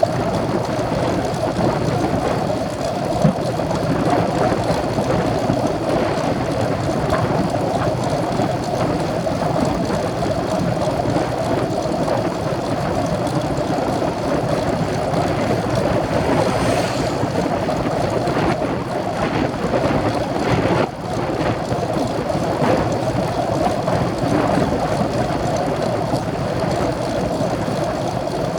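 Steady wind rush and rumble on the microphone of a camera carried on a moving road bike, with a short dip about twenty seconds in.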